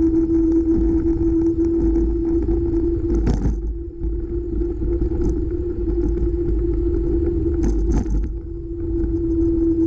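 Ride noise from a camera mounted on a bike moving along a paved road: low wind and road rumble under a steady hum. A few short rattling knocks come from bumps, one a little over three seconds in and a pair near eight seconds.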